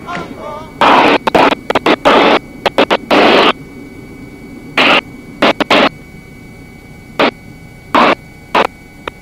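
Loud static-like bursts of hiss on a helicopter's headset intercom feed, cutting in and out irregularly about a dozen times over a low steady hiss.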